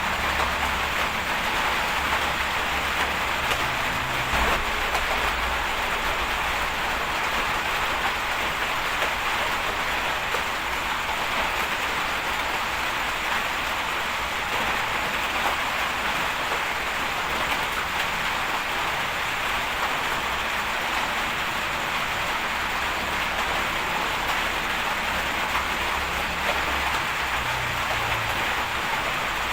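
Steady rain falling, an even hiss, with a low rumble coming and going underneath.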